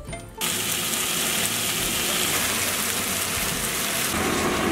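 White fish fillets sizzling in hot oil in a non-stick frying pan: a steady, dense hiss that starts suddenly about half a second in.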